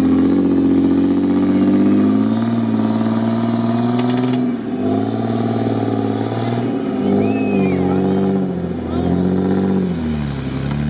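Jeep Wrangler TJ engine revving hard under load as the jeep on 37-inch mud tyres claws through a deep rut, its pitch rising and falling repeatedly and dropping near the end.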